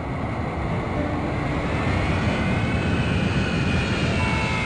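Jet airliner engines: a deep rumble under a high turbine whine that rises and then sinks back as the plane passes and climbs away.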